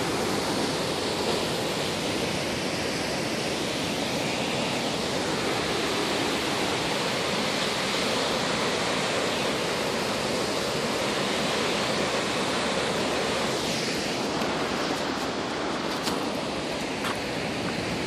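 Steady rushing of a waterfall, with a few faint clicks near the end.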